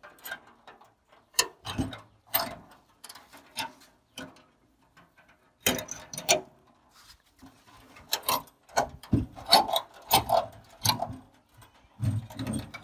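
Pliers working the bent sheet-metal guard of an old concrete mixer while hands tug it loose: irregular metallic clicks, scrapes and clanks, coming thicker in the second half.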